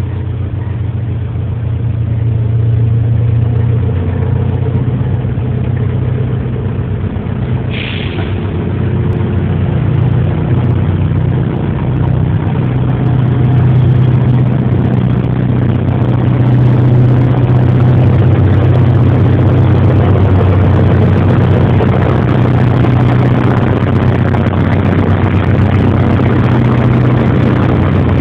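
SM42 diesel shunting locomotive's eight-cylinder diesel engine running under load as it moves a rake of freight wagons, a steady low throb that grows louder as the locomotive draws near, with the rolling of the wagons' wheels on the rails.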